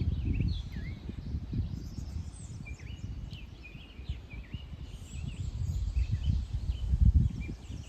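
Several small birds chirping, with short calls that glide up and down in pitch. Underneath is an uneven low rumble that swells near the start and again, louder, about six to seven seconds in.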